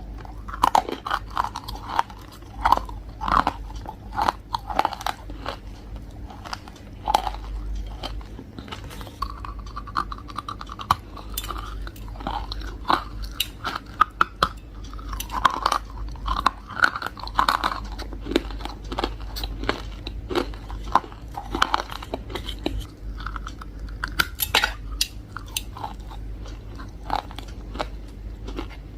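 Close-up crunching as someone bites and chews hard, crunchy chunks, with many sharp crackles and snaps throughout.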